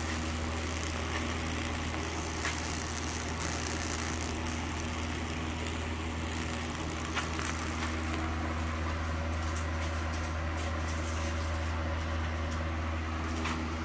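High-voltage transformer humming steadily while the electric arc burns a branching fractal (Lichtenberg) pattern into wet wood. The arc adds faint, irregular crackles over the hum.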